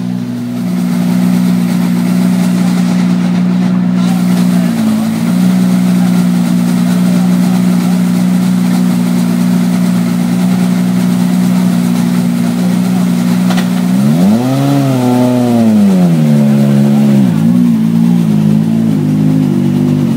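Ford Fiesta RS WRC rally car's 1.6-litre turbocharged four-cylinder idling steadily, then blipped once about two-thirds of the way through, the pitch rising and falling back over about three seconds before it idles unevenly.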